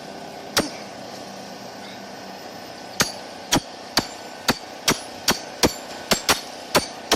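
Hammer blows: a single strike about half a second in, then a steady run of strikes from about three seconds in, roughly two a second and quickening toward the end.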